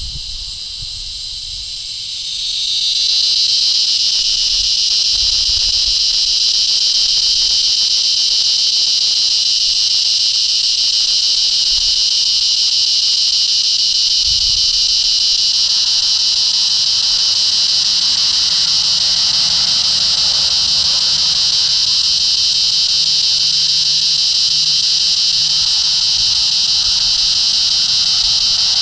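Resonant cicada (Tibicen resonans) calling in one long, continuous loud buzz, which swells up to full strength about two to three seconds in and then holds steady.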